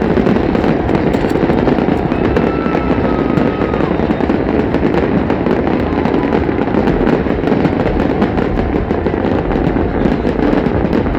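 Festival fireworks display going off in rapid succession, a dense, continuous crackle of many small bursts and pops.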